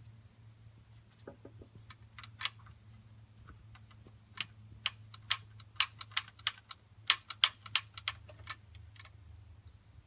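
A string of irregular sharp clicks and taps from small hard objects, thickest in the middle stretch, over a faint steady low hum.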